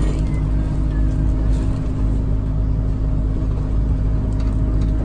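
Alexander Dennis Enviro200 single-decker bus heard from inside the saloon: its diesel engine and drivetrain running steadily as a low, even drone with a constant hum.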